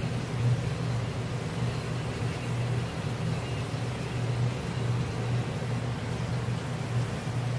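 A steady low mechanical hum with an even hiss over it, running without a break.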